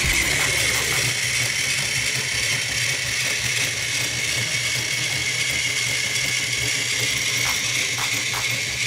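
Plarail Percy toy train's battery motor and gearbox whirring steadily while the engine is jammed against a stuck coach, straining without moving. Near the end a run of ticks, about three a second, joins the whir.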